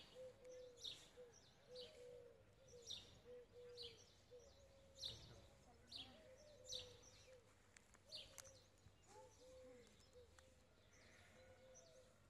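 Faint birdsong: short high chirps repeating about once a second, over a lower bird call of short hooting notes given in quick groups.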